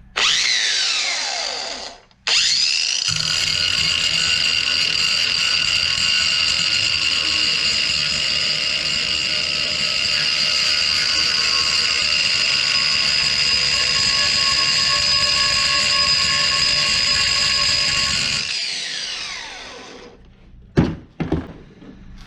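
Electric angle grinder grinding down a weld on the scooter's steel muffler part: a short run that winds down, then a restart and a steady high whine for about sixteen seconds before it spins down. Two sharp knocks follow near the end.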